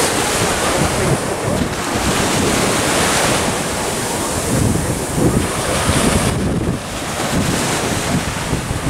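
Small waves breaking and washing up onto a sandy beach, with wind buffeting the microphone in gusty low rumbles.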